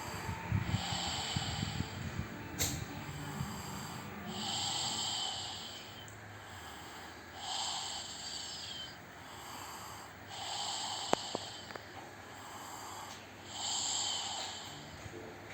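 A sleeping person snoring: five slow, even breaths about three seconds apart, each a hissy, rasping snore.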